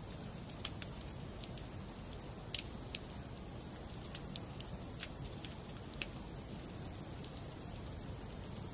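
Wood fire burning in a fireplace, with a steady low rumble and irregular sharp crackles and pops of the burning logs.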